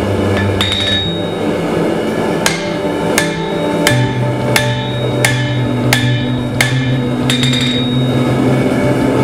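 Hand hammer striking red-hot steel bar stock on an anvil. After a few scattered blows, a steady run starts about two and a half seconds in, roughly one blow every 0.7 s, each with a short metallic ring. Background music plays underneath.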